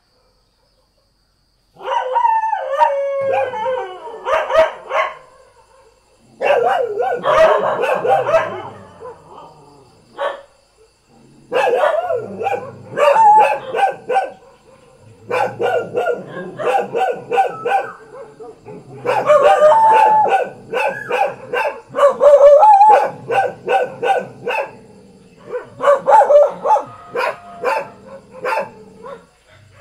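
Several village dogs barking and yelping in quick runs, mixed with longer pitched cries that bend up and down. The barking starts about two seconds in and comes in bursts with short pauses between them.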